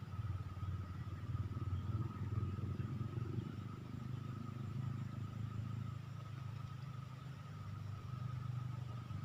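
A motor running steadily: a low, even hum with a thin, steady high-pitched tone above it.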